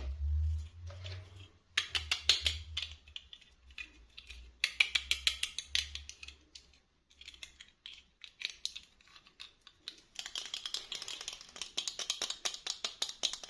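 Bursts of rapid, fine crackling and clicking from small plastic toy packaging being handled and opened, in four runs of a second or more each, with a low handling bump at the start.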